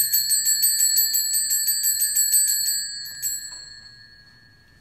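Altar bells (sanctus bells) shaken rapidly, about seven strokes a second, rung for the elevation of the host at the consecration. The shaking stops about three seconds in, with one last stroke, and the ringing dies away.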